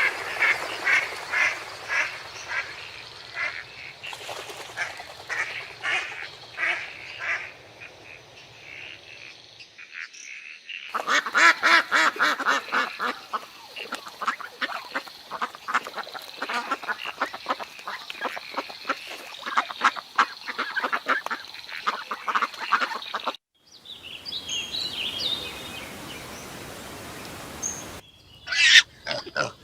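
Ducks quacking over a run of short clips, with hard cuts between them. The calls come in quick repeated runs, busiest through the middle stretch.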